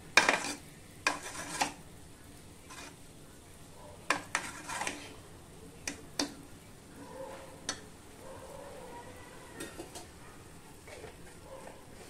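A metal spatula scraping and stirring cooked tomato rice in a pressure-cooker pot, mixing in ghee. The scrapes come in short clusters, loudest near the start and about four seconds in, with fainter strokes toward the end.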